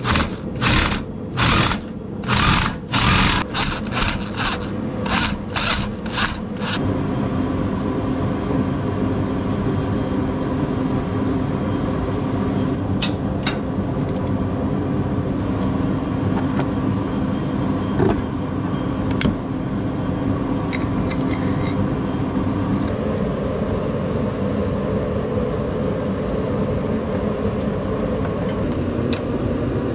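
A garage heater running with a steady hum, which the owner calls loud enough to ruin the audio. In the first several seconds there is a quick run of knocks and rubbing, and later a few scattered clicks of hand tools working on the truck's underside.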